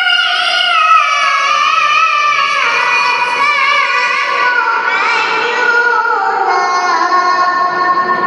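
A young girl's voice reciting the Quran in the melodic tilawah style: one long, ornamented phrase that slowly steps down in pitch and breaks off near the end.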